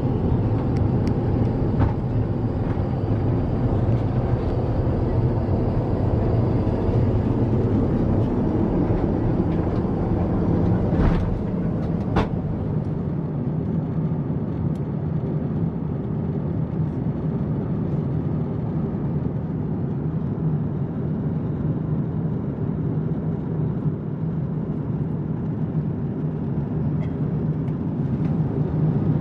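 Airbus A350-900 cabin noise in cruise: a steady low rumble and rush of air. Two short clicks come about eleven and twelve seconds in.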